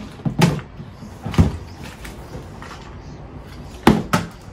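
A partly filled plastic bottle being flipped and landing on a tabletop: four short knocks, the last two close together near the end, as the bottle hits the table and tips over.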